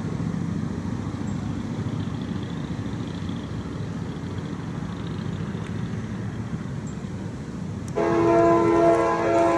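CSX diesel locomotive running with a steady low rumble as it moves slowly along the track; about eight seconds in its air horn sounds, a loud chord of several notes held to the end.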